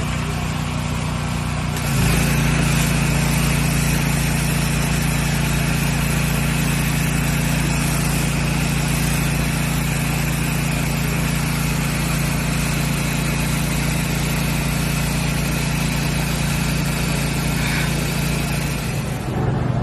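Pressure washer running steadily, its high-pressure water jet hissing against stone steps. The spray gets louder about two seconds in.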